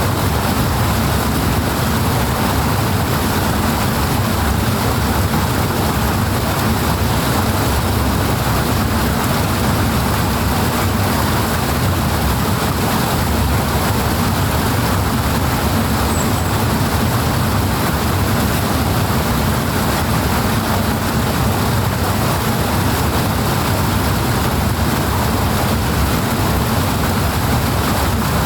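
Loud, steady rushing of powerful flowing water, an even wash of noise with no breaks.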